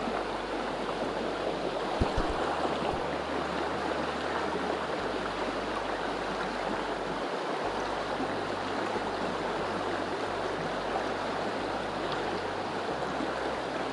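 Steady rushing of a small river's current, with a brief knock about two seconds in.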